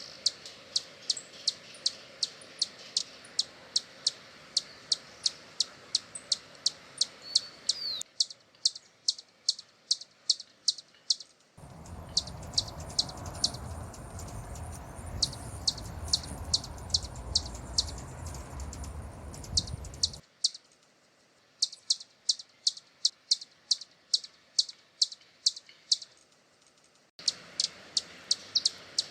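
Hummingbird giving a steady run of high, sharp chip notes, about three a second. For several seconds in the middle a low rumbling noise lies under the chips, and the chipping breaks off briefly twice.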